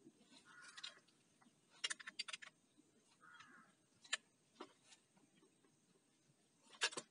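Light metal clicks and taps as a chainsaw attachment's housing is worked onto an angle grinder's gear head by hand: a quick cluster about two seconds in, a few single clicks, and another cluster near the end, with two brief soft rustles between.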